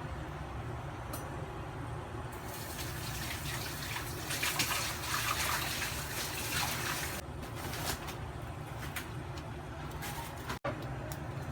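Water running or pouring for about five seconds, starting a couple of seconds in, over a steady low hum.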